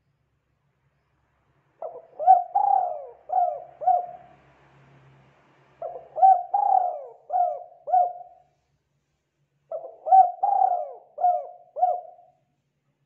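Spotted dove cooing: three phrases of about five quick coos each, a second or two apart.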